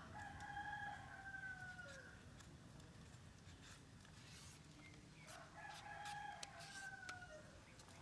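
A rooster crowing twice, each crow about two seconds long and dropping slightly in pitch at its end; the second crow comes about five seconds in.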